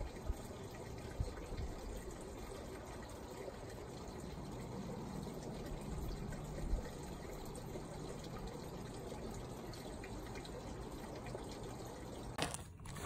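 A steady rushing noise with a few soft bumps, cutting off near the end.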